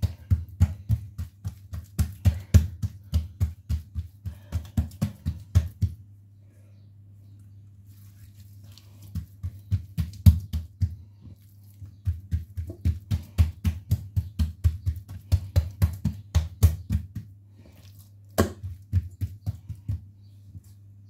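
Palms patting and pressing stacked sheets of dough flat on a tiled counter: quick soft pats at about four a second, in runs of several seconds with short pauses. A steady low hum runs underneath.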